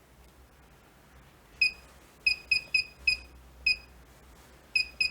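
Wireless alarm panel's keypad beeping, one short high beep per button press as its menu is worked: about eight presses at uneven spacing, starting a little over a second and a half in.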